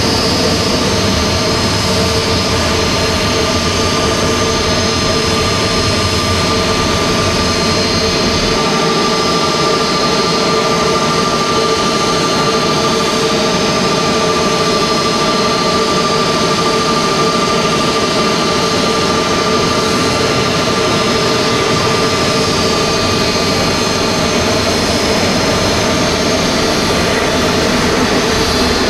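Airliner jet engines: a loud, steady jet whine of several held tones over a rushing hiss. A deep rumble under it drops away about a third of the way in.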